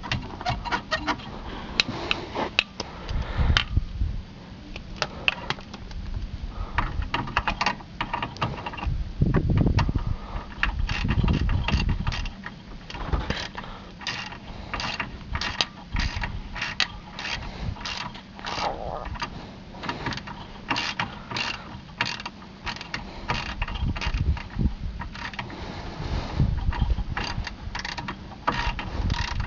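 Metal parts and hand tools clicking and clinking in quick runs, with a few low knocks, as the air suspension compressor's spring-and-sleeve rubber damper mount is fitted back together.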